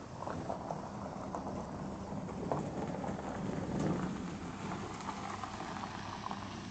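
Rustling and scattered irregular knocks as a handheld camera is carried through tall grass, over a low steady hum.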